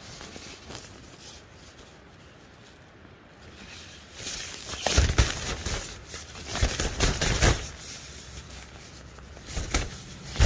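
Rustling and bumps of handling noise in a few clusters: one about five seconds in, a longer run around seven seconds, and a sharp knock at the end, with a faint steady background between them.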